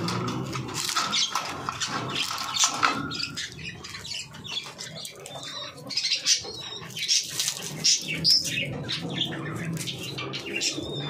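Pigeons and hens in rooftop pens: scattered chirps and squawks with wing flapping, among small knocks and rustles.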